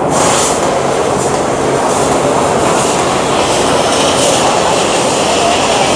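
Fiber laser cutting machine cutting sheet metal: a steady loud rushing noise with repeated bursts of high hiss, starting right at the beginning.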